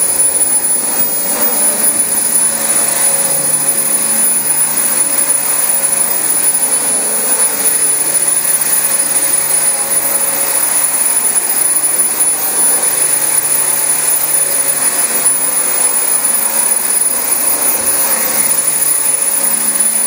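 Dyson DC25 upright vacuum cleaner running steadily, its motorised brush bar working through thick carpet, with a thin high whine over the suction noise.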